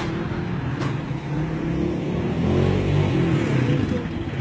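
Freightliner FLD 120 semi truck's diesel engine running steadily.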